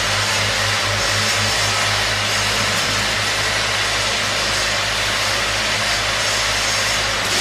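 Factory machinery of a nail polish filling line running: a steady low hum with an even hiss over it.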